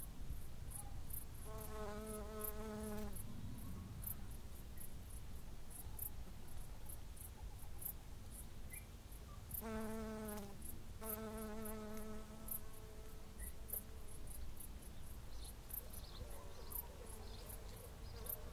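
Insect sounds: a flying insect buzzes past three times, once early and twice around the middle, each a wavering drone lasting one to one and a half seconds. Under it runs a steady, rapid high ticking, with a low rumble of wind on the microphone.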